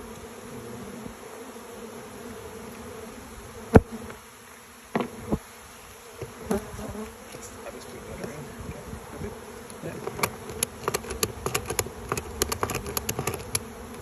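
Honeybees buzzing in a steady drone around the open hives, with a ratchet strap being cranked tight over a hive box: one sharp click about four seconds in, a few scattered clicks after it, then quick runs of ratchet clicks over the last four seconds.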